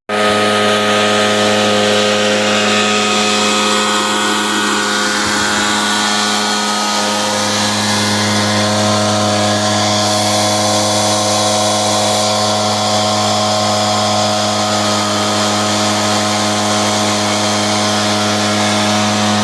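Echo PB770H backpack blower's two-stroke engine running steadily at a constant speed.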